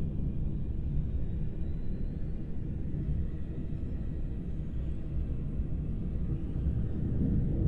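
Deep-ocean underwater ambience: a steady low rumble, with faint high gliding tones drifting through it.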